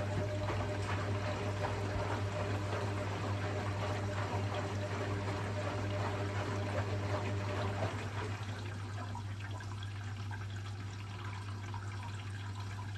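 Hotpoint Experience WMEF641 washing machine filling: water pouring into the drum, with a steady low hum underneath. The water noise eases a little about eight seconds in.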